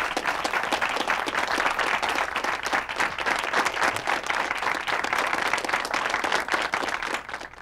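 Studio audience of a few dozen people applauding in welcome, a dense, steady clatter of many hands that dies away shortly before the end.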